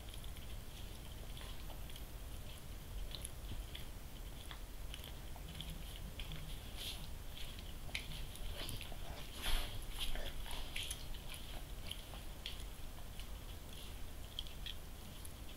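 A Doberman Pinscher licking and nibbling at her own coat as she grooms herself: faint, irregular wet smacks and small clicks, with one louder burst about two-thirds of the way through.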